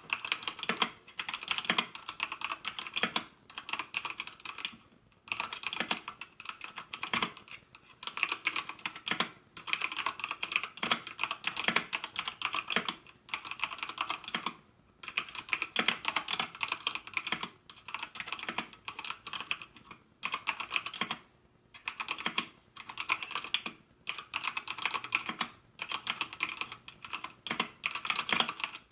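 Typing on a Redragon Fizz K617-RGB wired mechanical keyboard: fast runs of key clicks and clacks in bursts of a second or two, with short pauses between them.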